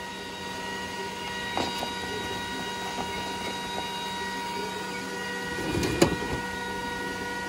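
A machine running steadily, its hum carrying several constant whining tones. There are a few light clicks about two seconds in and a brief rustle and clatter of plastic face-shield parts being handled about six seconds in.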